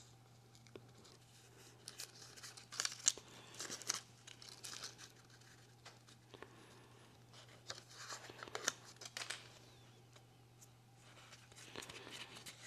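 Paper release liner being peeled off thin adhesive-backed neoprene foam, and the foam handled and pressed onto a 3D-printed plastic part. The sound is faint tearing and crinkling rasps in two spells, one about two seconds in and another about eight seconds in.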